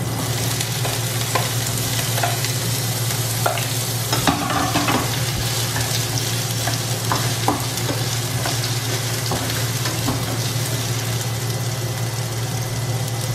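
Carrot slices dropping into hot olive oil in a stainless-steel frying pan and sizzling steadily, with a spatula scraping and stirring them, over a low steady hum.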